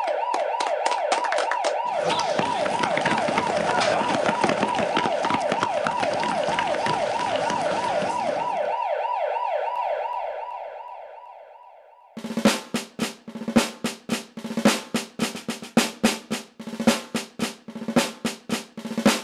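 A siren wailing in a fast, repeating rising pitch over applause, both fading out about ten seconds in. About two seconds later a rhythmic drum beat starts.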